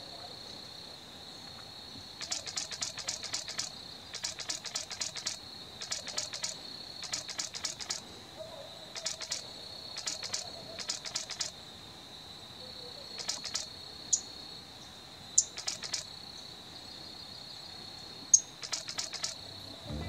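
Insects calling: a steady high-pitched drone, with a rapid pulsing chirp repeated about ten times, each chirp lasting up to a second, and a few sharp single chips in the second half.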